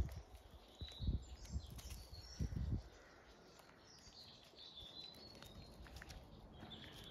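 Wild birds chirping and singing in the background, with a few low, dull thumps about one second and two and a half seconds in.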